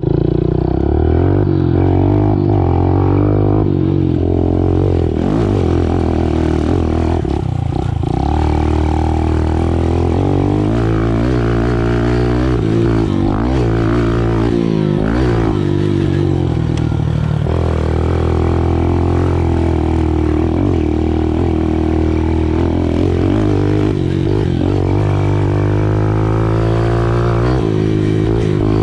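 Small 110cc dirt bike engine running as it is ridden, revving up and easing off over and over, its pitch rising and falling repeatedly.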